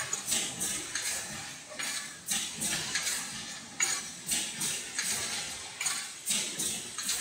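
Tinplate sheets clattering on a can production line's sheet stacker: sharp metallic strikes, unevenly spaced at about two a second, over a low machine rumble.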